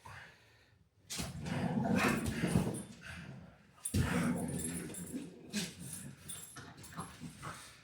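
A dog whining and vocalizing in two bouts, starting about a second in and again about four seconds in.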